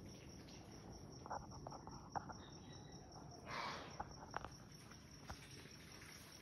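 Faint, steady chirping of crickets, with a few soft scattered clicks and a brief rustle about three and a half seconds in.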